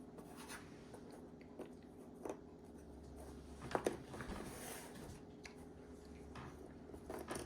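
Faint handling of cardboard jigsaw puzzle pieces: a few short clicks and taps with light rustling, the loudest tap nearly four seconds in.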